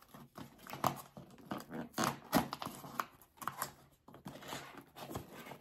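A paperboard gift box being opened by hand, its end flap pulled open: short, irregular scrapes, rustles and crinkles of card and paper.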